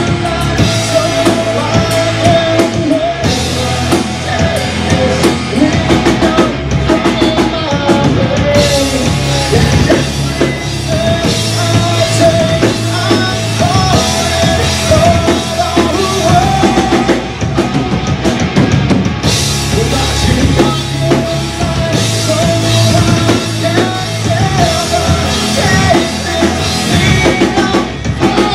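A rock band playing live and loud: electric guitar, bass guitar and a drum kit.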